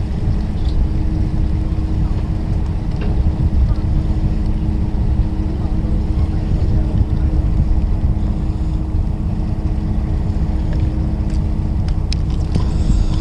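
Fishing boat's engine running steadily: a low, even drone with a constant hum. A few light clicks come near the end.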